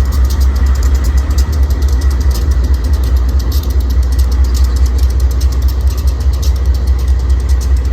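Diesel locomotive engine idling with a steady, loud low rumble.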